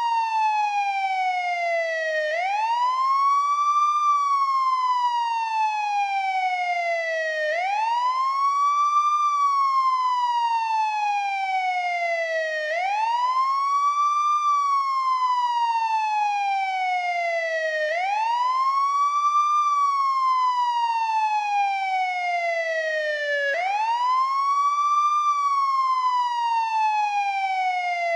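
American police siren on its wail setting: a tone that sweeps up quickly and then falls slowly, repeating about every five seconds.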